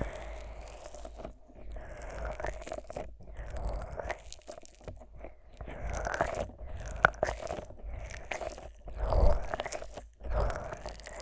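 Fingers rubbing thick Vaseline over the silicone ears of a 3Dio binaural microphone: close, sticky, squishing rubbing with crackles and clicks, swelling louder about nine seconds in.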